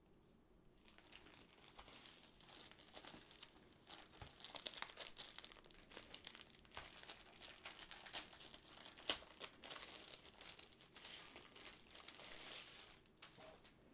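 Soft crinkling and tearing of a thin plastic packaging sleeve as it is ripped open and slid off a rolled diamond-painting canvas, with irregular rustles and crackles and one sharper crackle about nine seconds in.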